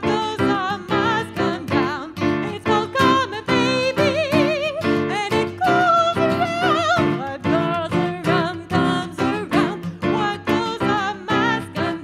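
A woman singing a slow melody with vibrato, accompanied by strummed acoustic guitar in a steady rhythm and keyboard, played live.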